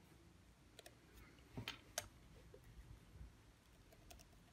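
Faint small clicks and taps of wire ends, washers and terminal hardware being handled on an electric motor's terminal posts, with a louder pair of clicks just under two seconds in.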